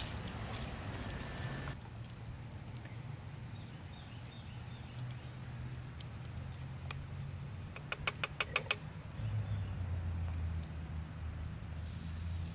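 Wooden spoon stirring creamed dried beef in a skillet for a couple of seconds. Then a low steady hum, and about eight seconds in a quick run of about seven clicks.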